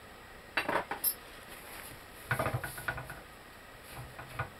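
Metal parts and tools being handled at a bushing press, giving short clusters of clinks and knocks: a few about half a second in, a busier run around two and a half seconds, and a couple more near the end.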